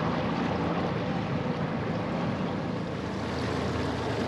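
Small boat motoring slowly: a steady low motor hum under water wash and wind on the microphone.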